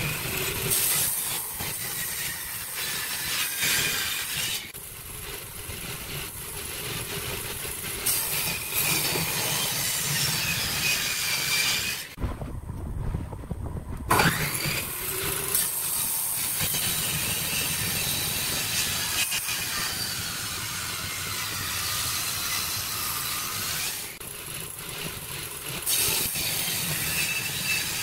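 Table saw with its circular blade set through a wooden bench top, running and cutting through wooden boards in several passes, with short lulls between cuts.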